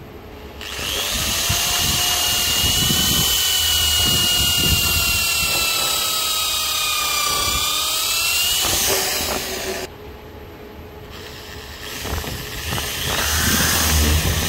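Corded power drill boring into clamped wooden boards, its motor whine sagging slightly in pitch as the bit bites. It cuts out about ten seconds in and starts up again near the end.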